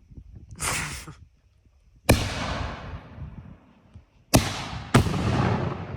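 Two "Superman" firework shells being fired: a short rushing launch, then three sharp bangs, each dying away in a long echoing rumble.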